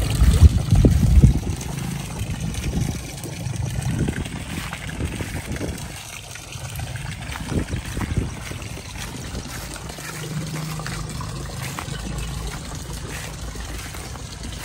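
Water trickling and splashing steadily into a fish pond from an inflow. A low rumble on the microphone is loudest in the first second or so.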